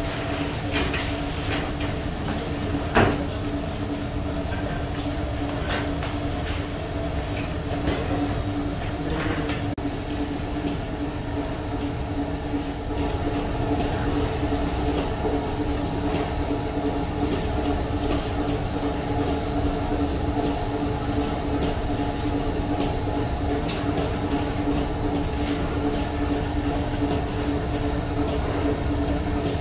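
Steady machinery hum with a constant low tone, with a few clicks and knocks, the sharpest about three seconds in; it gets slightly louder about halfway through.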